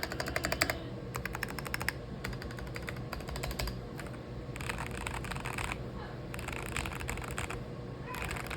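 Keychron V6 mechanical keyboard with stock brown tactile switches being typed on: rapid keystroke clicks in several bursts of a second or so, with short pauses between them.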